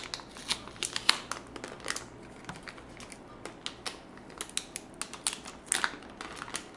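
Clear plastic packaging crinkling and clicking in irregular snaps as it is pulled open by hand.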